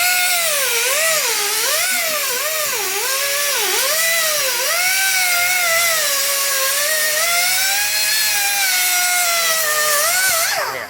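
Cut-off wheel grinding a line into the pressed-on wheel bearing of a Dana 44 axle shaft, cutting it to release its grip so it can be split off with a chisel. A high whine rises and falls in pitch as the wheel bites and eases off the steel, over a steady grinding hiss. It winds down and stops near the end.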